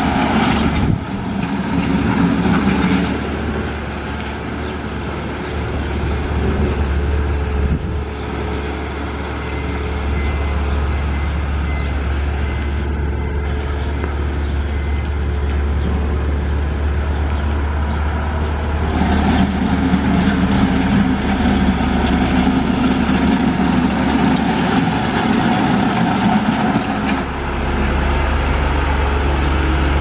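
Howa road sweeper truck at work, its diesel engine running with the rumble and hiss of its brushes sweeping sand off the road. A deep steady drone runs under it, and the sound grows heavier for a few seconds at the start and again for several seconds past the middle.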